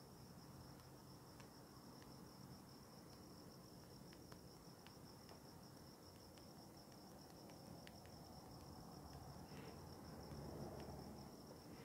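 Crickets chirping faintly: one steady, high, unbroken trill, with a few faint clicks scattered through.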